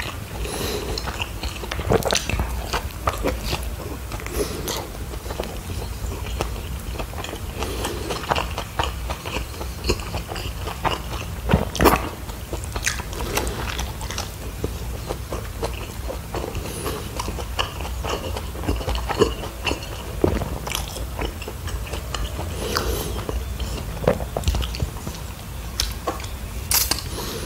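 Close-miked mouth sounds of a man biting into and chewing a spicy Korean beef burger with cheese and vegetables in a soft bun: wet chewing with irregular small clicks and smacks, over a faint low hum.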